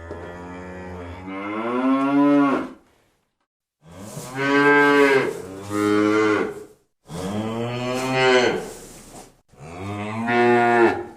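Cattle mooing: about five long moos in a row, each lasting one to three seconds and separated by short silent gaps. The first moo rises in pitch partway through.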